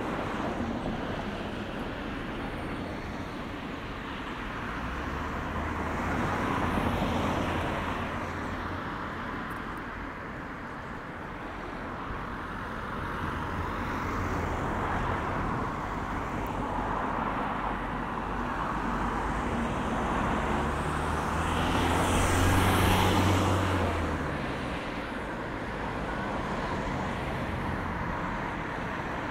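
Road traffic: cars moving slowly past with engine and tyre noise. Vehicles pass close twice, about a quarter of the way in and again about three quarters through.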